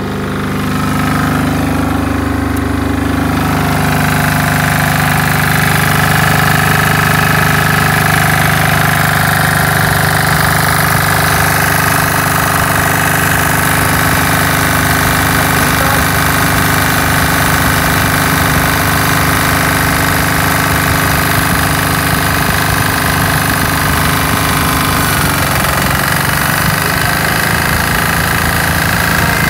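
MEP-831A military generator's single-cylinder diesel engine running steadily under load. About four seconds in, a large electric fan comes up to speed on top of a heat-gun load, adding a steady whine, and the engine takes the load and holds its speed without surging. The engine note shifts slightly near the end.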